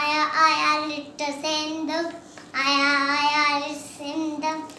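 A young boy singing in drawn-out phrases at a fairly steady pitch, with one long held note about halfway through.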